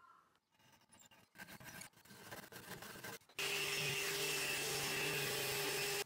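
Faint scraping and knocking, then about three and a half seconds in a random orbit sander starts up abruptly on a wooden frame. It runs as a steady hum with a high whine and cuts off suddenly.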